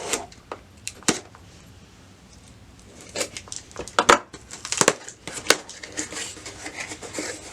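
Puzzle packaging being opened and handled: crinkling and tearing with scattered sharp clicks and scrapes, busiest about three to five seconds in.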